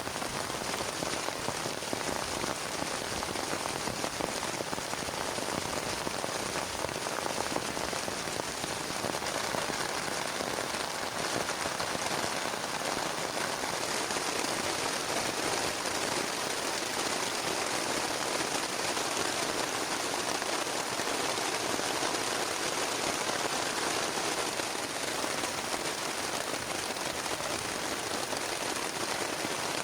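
Heavy rain falling in a dense, even patter that holds steady throughout.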